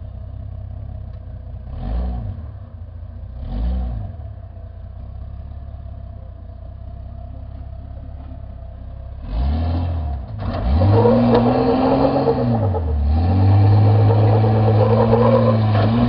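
Jeep Cherokee XJ engine running low with two short blips of throttle, then from about nine seconds in revved hard and held at high revs, pitch rising and dipping, as the Jeep climbs a rock ledge under load. The rear wheels spin and throw dirt near the end.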